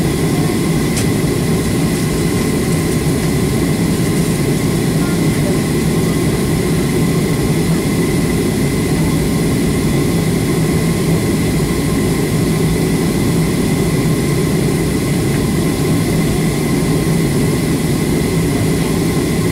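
Cabin noise of a Boeing 737 taxiing: the jet engines make a steady drone, with a thin steady whine above it.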